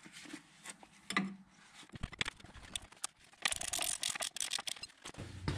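Ratcheting spanner clicking quickly on the track rod end nut of a van's front suspension, with scattered clinks of steel tools on the joint. The rapid clicking comes in a burst a little past halfway.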